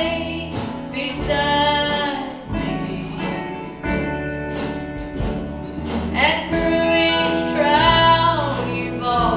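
A woman singing a gospel song over instrumental accompaniment, her held notes bending and sliding between phrases.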